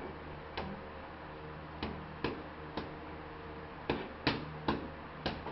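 Boxing-glove punches smacking against the trainer's hands, about eight sharp separate smacks at uneven intervals, several coming in quick pairs.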